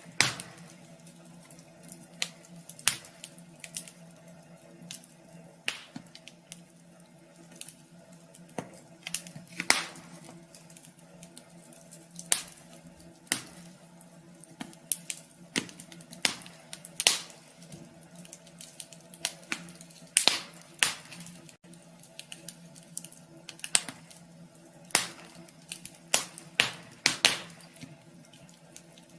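Wood fire crackling in a wood stove, with irregular sharp pops and snaps, a few each second and some much louder than others. A steady low hum runs underneath.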